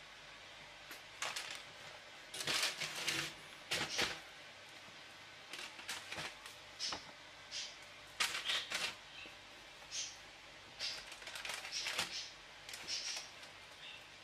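Baking paper and crisp baked pide crust crackling and rustling under hands handling and lifting the flatbreads: an irregular string of short, dry crackles.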